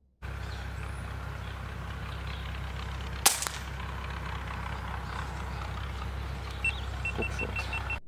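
A single sharp crack of a .22 PCP air rifle shot about three seconds in, over a steady low background rumble. Near the end comes a quick run of short high chirps, about five a second.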